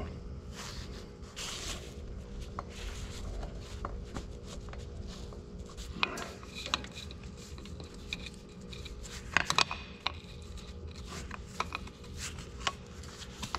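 Light metallic clinks, taps and rubbing as a hydraulic hose fitting is handled and threaded onto a cylinder port, with a cluster of sharper clicks about two-thirds of the way through, over a faint steady hum.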